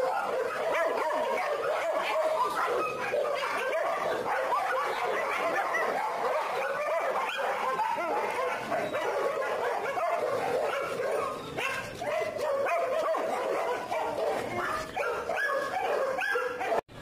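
Several dogs barking and yipping together in a dense, continuous chorus of overlapping calls. It cuts off suddenly near the end.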